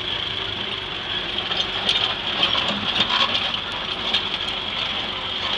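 Fordson Major tractor with Roadless half-tracks running at idle under pulling load, its steel tracks clanking and rattling over the drive wheels. The clatter grows louder in the middle. It is held to an idle because more throttle just spins the tracks.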